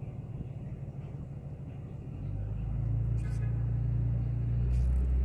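An engine running with a low, steady rumble that grows louder about two seconds in, with two brief rustles on top.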